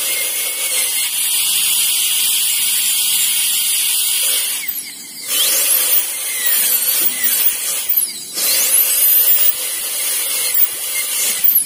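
High-speed air-turbine dental handpiece whining as its burr cuts away excess dentine around the access opening of an extracted upper front tooth. It cuts out briefly twice, about five and eight seconds in, and its pitch sweeps up and down as it spins back up and bears on the tooth.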